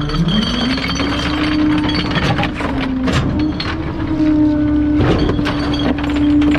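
Garbage truck's engine revving up to drive the hydraulic compactor, its pitch rising just after the start and then holding steady, while bulky items crack and snap repeatedly as they are crushed.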